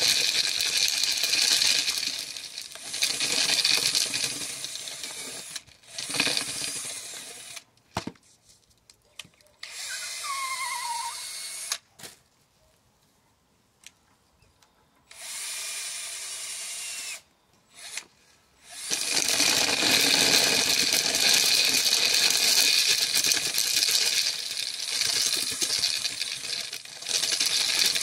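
Cordless drill spinning the bolts inside a homemade PVC-pipe corn sheller, stripping kernels off a cob as a loud, dense rattle. It stops after about seven seconds while a new cob is loaded, then starts up again about two-thirds of the way through.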